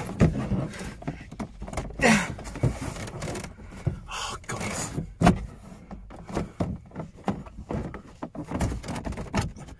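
Plastic dashboard trim panel of a Honda Civic Type R FN2 being pulled and worked loose by hand: irregular clicks, knocks and scrapes of plastic against plastic as a stuck clip at the back resists, the sharpest knock about five seconds in.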